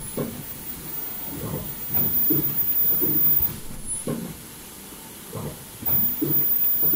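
N95 folding-mask production line running: repeated clunks from the machine's cycle every half second or so over a steady hiss, with a thin high-pitched whine that cuts in just after the start, stops partway through and comes back near the end.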